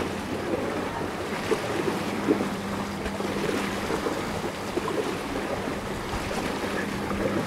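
Water splashing and lapping in the river shallows as a dog swims, with wind on the microphone.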